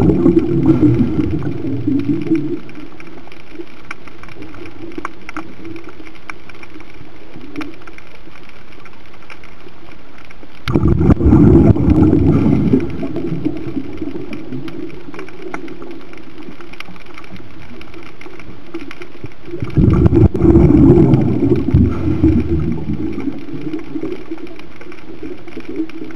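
Scuba diver's exhaled breath bubbling out of the regulator, heard underwater: rumbling bursts of bubbles two to three seconds long, one fading out about two seconds in and two more about eleven and twenty seconds in, with a steady hiss between them.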